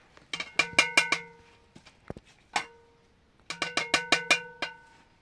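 A short, bright phrase of quick struck, ringing notes at a few fixed pitches, played twice about three seconds apart, with a single struck note in between.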